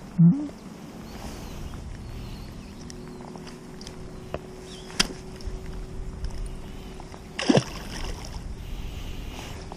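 A largemouth bass let go over the side lands in the water with a short splash about seven and a half seconds in. Before it there is a brief loud sound right at the start and a sharp click about halfway.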